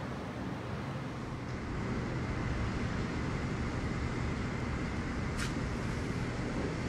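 Steady low rumble of distant city traffic heard from a high-rise balcony, growing slightly louder about two seconds in, with one short click near the end.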